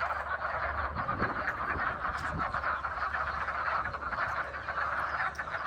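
A dense chorus of hundreds of frogs calling together from a pond, a continuous overlapping croaking.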